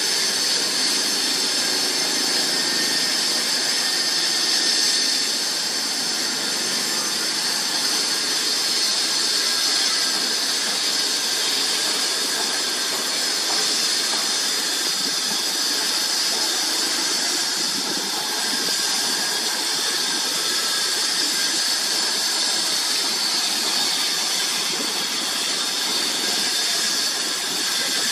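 A roosting colony of flying foxes squealing and chattering together, a dense, steady, high-pitched din of many overlapping calls.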